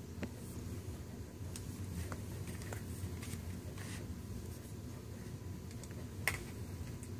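Steady low room hum with faint scattered ticks and scrapes, and one sharper click about six seconds in.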